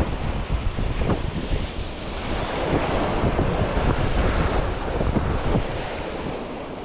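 Wind buffeting the microphone in gusts over the steady wash of sea surf.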